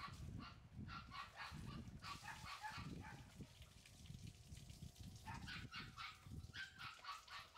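Faint run of short animal calls, several a second, coming in two bursts with a lull of about two seconds in the middle.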